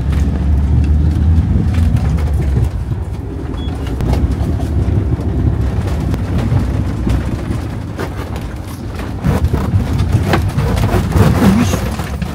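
A vehicle driving, heard from inside the cabin: a steady low rumble of engine and road noise, with a run of knocks and rattles in the second half as it jolts over a rough road.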